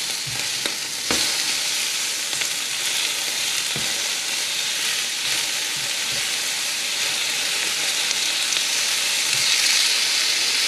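Beef tenderloin steak sizzling steadily in a smoking-hot frying pan, freshly turned to sear the other side, with a few light clicks in the first few seconds.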